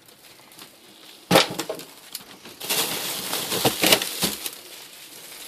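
Frozen packages being rummaged through in a chest freezer: a hard knock of frozen items, then rustling and crinkling of plastic bags with a few sharp clacks as packages are shifted.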